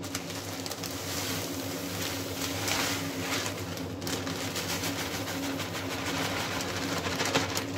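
Crushed pale malt pouring from a plastic bag into a mash tun: a steady rushing hiss of grain, with the bag crinkling, over a low steady hum.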